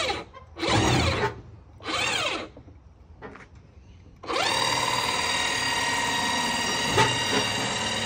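Electric motor of a Power Mate stair-climbing hand truck: three short bursts, each spinning up and winding down, then about four seconds in it runs steadily with a whine as it lifts its load. A single knock sounds about seven seconds in.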